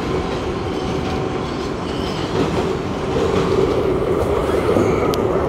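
A New York City 7 express subway train running at speed, heard from inside the car: a steady rumble of wheels on rail with a constant hum. It grows a little louder about three seconds in, and there is a short sharp tick near the end.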